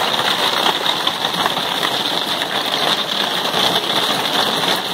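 Hail hitting the roof and skylight of a motorhome, heard from inside the cabin: a dense, steady clatter of many small ice impacts.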